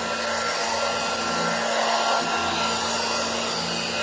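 Dirt Devil Model 103 hand vacuum running, its fan-first motor and revolving brush roll working over an upholstered cushion. A steady whirring hiss with a faint hum, the low end swelling and fading about once a second as the vac is pushed back and forth.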